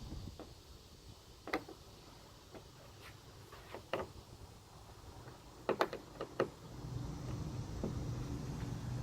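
Scattered light clicks and knocks of hard plastic and metal hardware being handled, with a cluster of several in quick succession about six seconds in. A steady low hum starts about seven seconds in.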